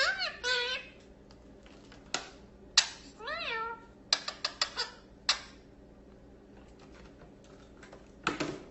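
A cat meowing twice, a short call at the start and another rising-then-falling meow about three seconds in, with several sharp clicks or taps in between and a brief knock near the end.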